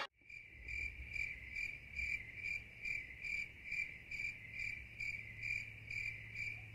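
A cricket chirping steadily, about two to three chirps a second on one high pitch, over a faint low hum.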